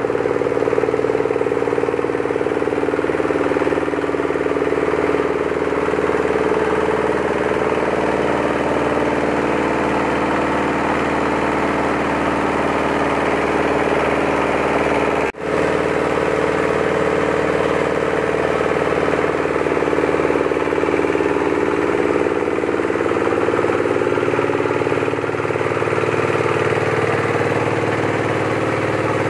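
Single-cylinder Nishikawa 8 hp diesel engine running steadily, belt-driving a KD 560 HMC mini rice mill as paddy is milled through it. There is a momentary break in the sound about halfway through.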